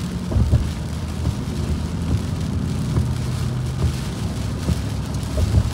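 Steady low drone of a car's engine and tyres on a wet road, heard inside the moving car, with a light hiss of rain and spray and a few small ticks.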